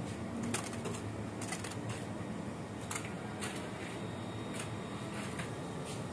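Irregular light clicks and taps of steel kitchen tongs against a metal bowl and styrofoam food boxes as fried chicken pieces are served out, over a steady low hum.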